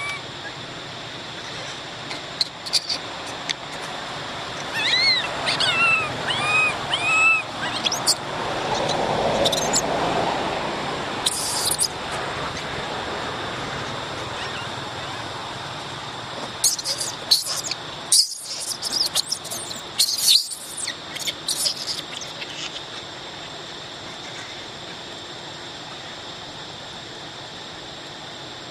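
Macaque calls: a run of about five short squeaky calls, each arching up and down in pitch, a few seconds in. Later, a scatter of sharp clicks and rustles over a steady background hiss.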